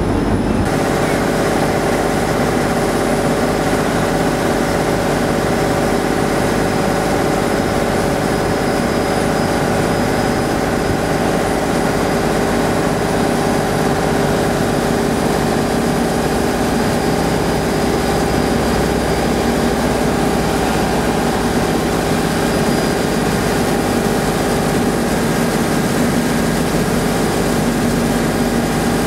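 A passenger river boat's engine heard from on board, running steadily under way as a hum of several steady tones, over the rush of the wake.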